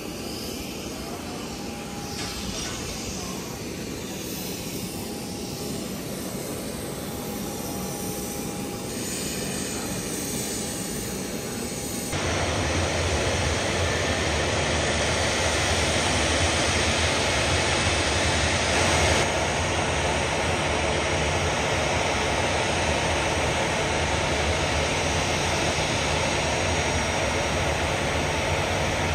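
Jet airliner engine noise on an airport apron: a steady rush with a low hum and a thin high whine, which jumps louder about twelve seconds in.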